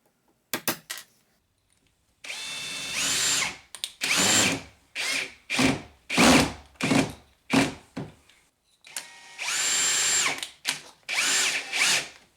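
Power drill run in bursts: a longer run with a rising whine about two seconds in, then a string of short trigger pulses, another longer run near the end and more short pulses. It is lowering the door's latch strike plate on the frame.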